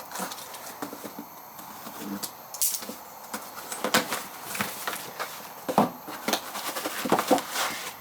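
A new steel-wheel centre cap and its packaging being handled: a scattered run of sharp clicks and light knocks, coming thicker in the second half.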